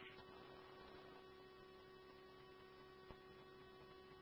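Near silence between radio transmissions: a faint, steady electrical hum on the scanner audio, with one tiny tick about three seconds in.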